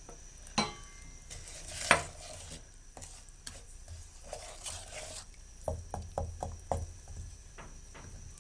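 Wooden spatula stirring spices frying in oil in a non-stick wok, with a light sizzle. The spatula knocks sharply against the pan twice in the first two seconds, then taps it in a quick run of knocks a little past halfway.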